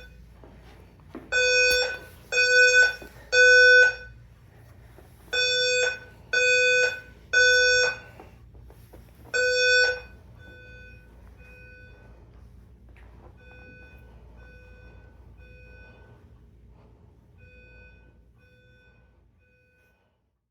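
Fire alarm sounding its three-beep evacuation pattern: groups of three short, shrill beeps separated by a pause. About ten seconds in the beeps become much fainter but keep the same rhythm.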